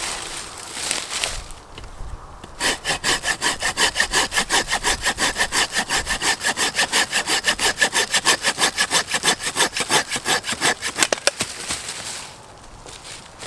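Hand saw cutting through wood with fast, even back-and-forth strokes, about four a second. The strokes start a couple of seconds in, after some handling rustle, and stop near the end.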